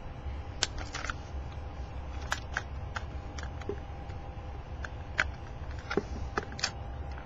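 Scattered small clicks and taps, about a dozen at irregular intervals, over a steady low hum.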